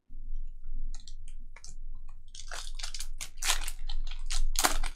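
Foil wrapper of a Topps Merlin Chrome trading-card pack crinkling and tearing open in the hands. There are a few scattered crackles at first, then a dense run of crisp crackles that grows louder toward the end.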